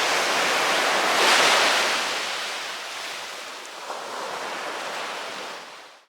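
Sea waves washing onto a beach: a rushing surge swells about a second in, then the wash slowly fades away.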